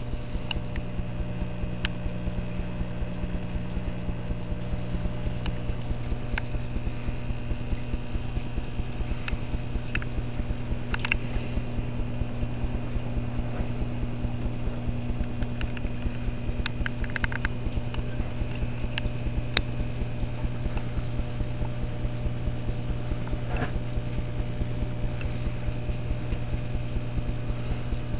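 Reef aquarium's hang-on-back power filter and powerhead running: a steady low hum with a fast, even rattling pulse underneath, and a few light clicks.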